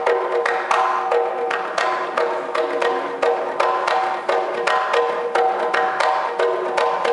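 Mizhavu, the large copper pot drum of Koothu, played with bare hands in quick, uneven strokes, about two to three a second, with ringing tones sustained between the strikes.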